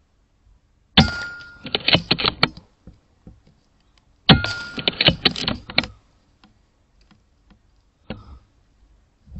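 Two shots from a .22 air rifle about three seconds apart. Each is a sharp crack followed by a second or so of rapid clicking and clatter.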